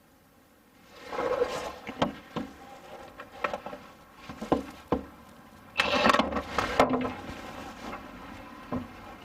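Hands-on work noise: a series of knocks, clicks and scraping, with the loudest clatter about six seconds in.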